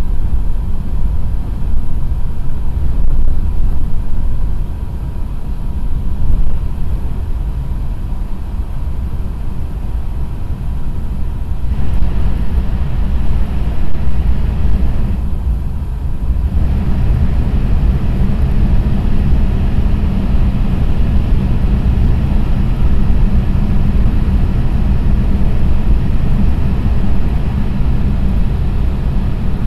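Running noise of a JR East E6 series Shinkansen at about 300 km/h, heard inside the passenger car: a steady low rumble with a rush of wind and rail noise above it and a faint steady whine. It grows louder about twelve seconds in, dips briefly a few seconds later, then stays at the louder level.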